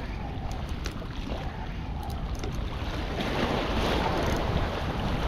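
Wind buffeting the microphone over sea water washing against breakwater rocks: a steady rushing noise that swells a little partway through, with a few faint clicks.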